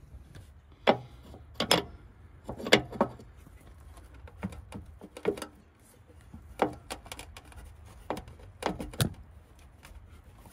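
About ten sharp metal clinks and knocks at irregular intervals as a steel combination wrench is fitted onto a rusted hydraulic hose fitting and worked against the neighbouring steel lines.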